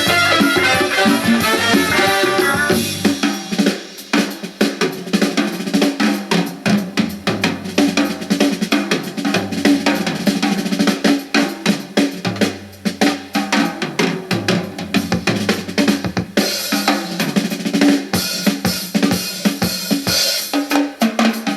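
Music played through a JVC RC-M90 boombox's speakers: a fast drum-kit beat of bass drum and snare over a stepping bass line, after fuller band music fades out about three seconds in.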